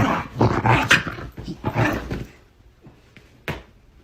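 A dog vocalizing: a rapid run of loud, rough growl-like noises over the first two seconds, then quieter, with one sharp click about three and a half seconds in.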